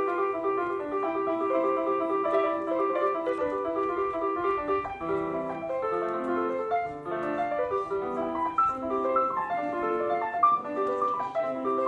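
Electronic keyboard playing a lively piece in a piano voice: quick, evenly spaced notes, with a lower moving line of notes joining about five seconds in.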